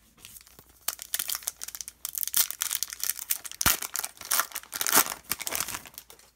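Foil wrapper of a Panini Excalibur basketball card pack being torn open and crinkled by hand: a dense run of crackles starting about a second in and stopping just before the end.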